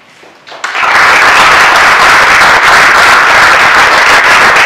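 Audience applauding. It breaks out about half a second in and holds at a loud, steady level.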